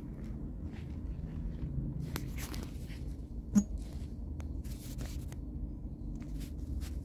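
Steady low hum of a large, empty sports hall, with faint scuffs and rustles and one sharp knock about three and a half seconds in.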